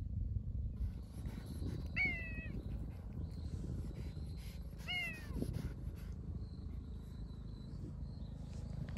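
Stray cat meowing twice, two short calls about three seconds apart, over a steady low rumble.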